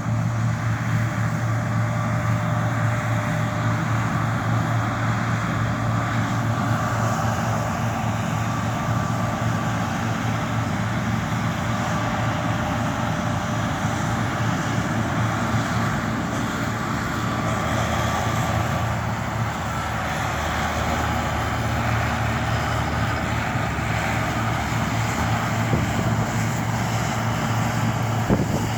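John Deere T670i combine harvester running steadily while cutting, a constant low engine drone with machinery noise over it. A brief knock comes near the end.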